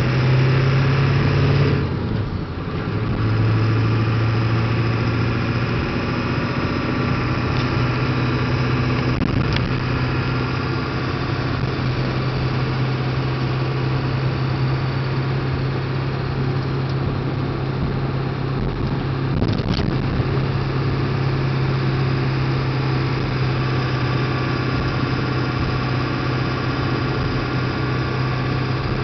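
A 7.3-litre diesel truck engine running while driving, a steady low drone that dips briefly about two seconds in. There are a couple of faint clicks, one about ten seconds in and one near twenty seconds.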